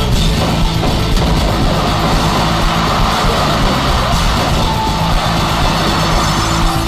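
Loud music playing steadily.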